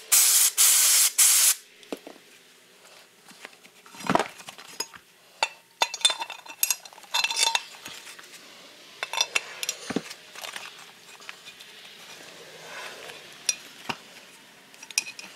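A loud hiss of an air-duster can held upside down, spraying the crankshaft bearing to chill it, stops about a second and a half in. Then come scattered light metallic clicks and knocks as the steel crankshaft and its bearing are worked into the heated aluminium crankcase half, where the bearing jams in crooked and does not seat.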